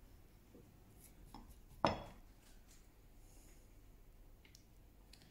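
Hand chisel paring out a hinge recess in hardwood: faint scrapes and light ticks, with one sharp click a little under two seconds in, as the hinge is offered into the recess.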